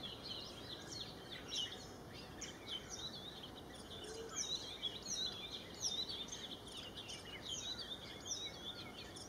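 Several small birds calling at once: a dense run of short, high chirps, many of them sliding down in pitch, over a steady low background noise.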